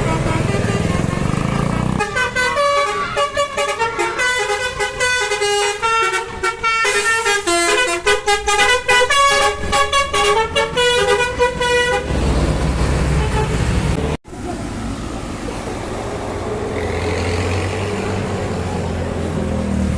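Basuri 'telolet' multi-tone bus horn playing a quick tune of stepped notes for about ten seconds, followed by a bus engine rumbling.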